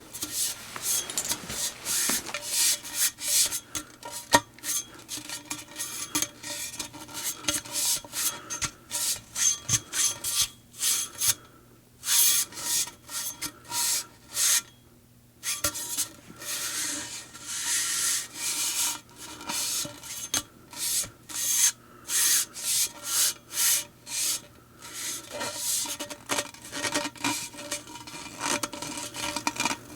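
A fuel rod handle worked back and forth over and over, making quick repeated scraping, rubbing strokes, with two short pauses near the middle.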